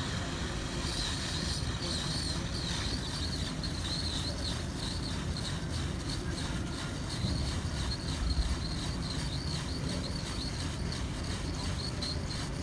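Nitro Fuzer nitrogen plastic welder running during a weld: a steady hiss of hot gas over a low rumble, with a thin high whistle that wavers in pitch from about a second in.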